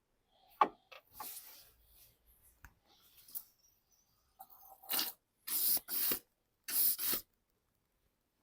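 A sharp click and some rustling, then a run of short hissing bursts of air, each about half a second long, the later ones coming in quick pairs.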